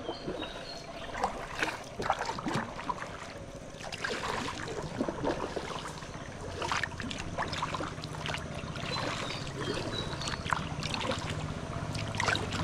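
Kayak paddle blades dipping and splashing with each stroke, with water dripping. A boat's engine hums low and steady underneath, getting louder toward the end as the boat approaches.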